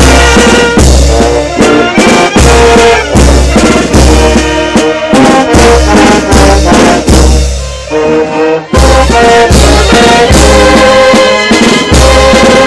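Mexican banda brass band playing live: sousaphone, trombones, trumpets, clarinets and saxophones in chords over regular tuba bass notes, with a snare drum hit close at hand. The band dips briefly about eight seconds in, then comes back in full.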